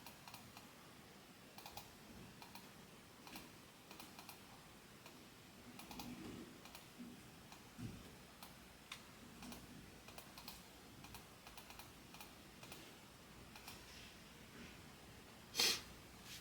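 Faint, scattered computer keyboard typing and clicks, with one louder click near the end.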